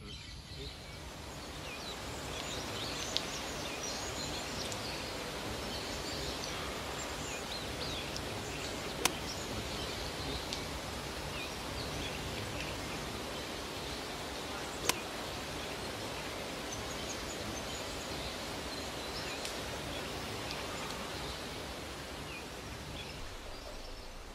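Outdoor ambience: a steady noise haze with faint, scattered bird chirps, and two sharp clicks about nine and fifteen seconds in.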